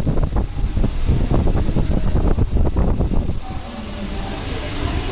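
Loaded wire shopping trolley rolling over a tiled floor, its wheels and wire basket rattling with a heavy rumble. The clatter eases about three and a half seconds in, leaving a quieter background.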